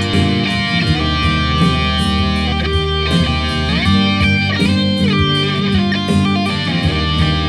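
Jackson electric guitar playing a melodic lead line, with notes that bend and slide in pitch over sustained low notes.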